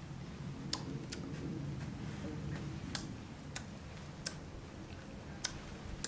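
Sharp clicks, six or seven of them at irregular intervals, over a low steady background.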